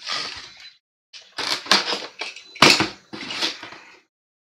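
A large white cardboard box being handled and laid flat: a few short bursts of cardboard scraping and rustling, ending about half a second before the end.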